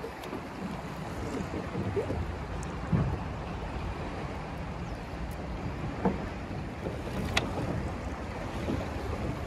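Steady rush of moving river water with wind buffeting the microphone, and a few light knocks.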